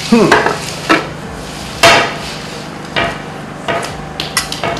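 A run of sharp knocks, about eight in under five seconds and unevenly spaced, over a low steady hum.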